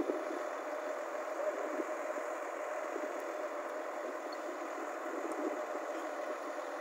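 JCB JS205 LC crawler excavator's diesel engine idling steadily, with a constant steady hum.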